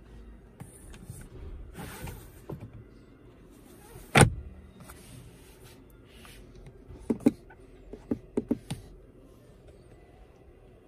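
Clicks from the door controls of a 2021 Kia Optima: a single sharp, loud click about four seconds in, then a quick cluster of about six clicks as the power window switches are pressed. Short stretches of noise come in between.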